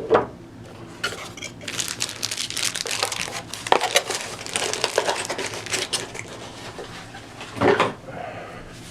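Product packaging being handled and opened: crinkling plastic and cardboard with many small clicks and knocks, busiest in the middle, and a single louder knock or rustle near the end.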